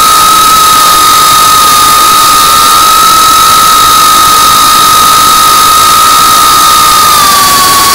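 GEPRC CineLog35 3.5-inch FPV quadcopter's brushless motors and propellers, heard from the on-board camera: a steady high whine over a rush of air, dropping in pitch about seven seconds in as the throttle eases off.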